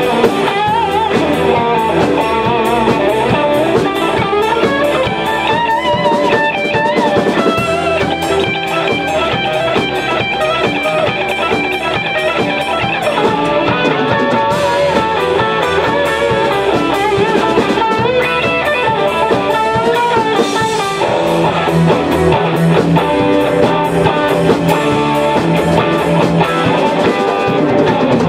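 Live rock band playing, an electric guitar prominent over bass guitar, drum kit and keyboard.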